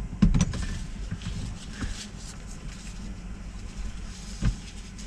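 Semi truck's engine idling as a steady low hum in the cab, under the rustle and knocks of a safety vest and gear being handled. A loud clunk comes just after the start and a thump near the end.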